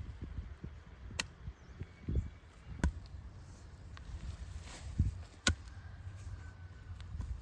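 A few sharp knocks, three of them spaced one to three seconds apart, mixed with dull thuds over a low rumble.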